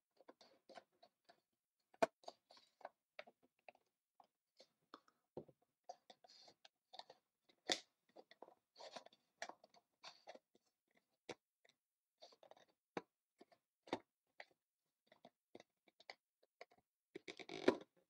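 A thin metal tool scraping and prying at the cardboard of a CPU retail box: irregular small clicks, crinkles and rubbing of card, with a sharper click about two seconds in and another near eight seconds.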